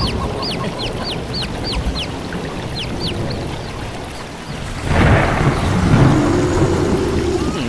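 A run of short, high, quickly falling chirps, then about five seconds in a sudden rumble of thunder with rain that carries on.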